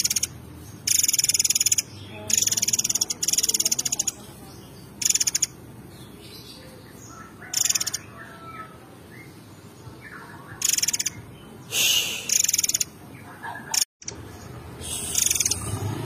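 Caged murai air mancur songbird singing: loud, very fast high trills, each about half a second to a second long, with softer lower whistled notes between them. The trills come about eight times, some in close pairs.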